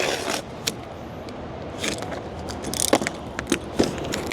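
A cardboard shipping box being cut open and handled: short scraping cuts with scattered sharp clicks and knocks.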